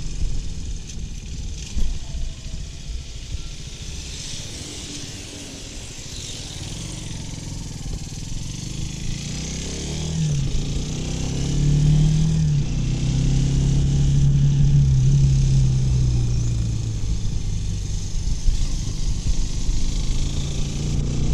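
Kawasaki W175's single-cylinder engine while riding: off the throttle and coasting for the first several seconds, then the exhaust note picks up in pitch about halfway through and pulls steadily. Wind and road noise hiss throughout.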